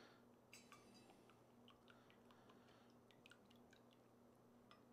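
Near silence: faint room tone with a low steady hum and a few very faint, scattered small ticks.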